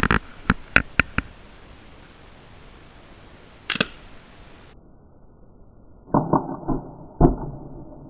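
Several sharp clicks, then a single sharp crack a little under four seconds in, typical of a pellet gun being readied and fired. Near the end comes a muffled cluster of bangs.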